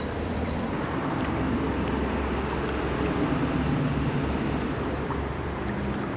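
Steady low rumble of a motor engine running, under an even background of outdoor noise.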